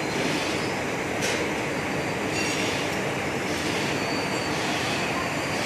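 Factory production machine running steadily with a rhythmic clatter that swells and fades about once a second, and a sharp click about a second in.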